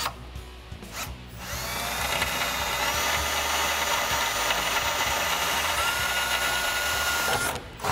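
Cordless drill running steadily as its twist bit bores through the steel skid plate, for about six seconds from a second or so in. A thin steady whine joins it near the end, before it stops.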